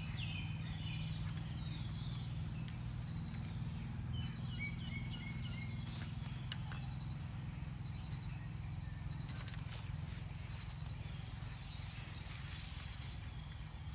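Birds chirping in quick runs of short notes over a steady low rumble, with a few faint clicks around the middle.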